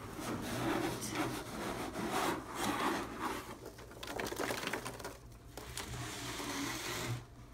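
Cardboard inner liner scraping and sliding up out of a cardboard shipping carton, with styrofoam packing peanuts rustling against the cardboard; the scraping stops abruptly near the end.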